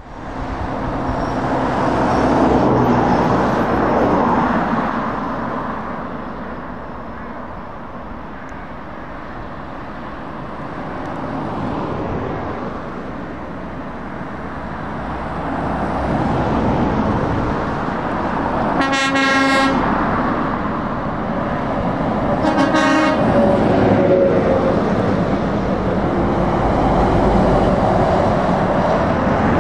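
Lorries and cars driving past on a main road, the traffic noise swelling and fading as they pass. A horn sounds twice, each blast about a second long and a few seconds apart, past the middle.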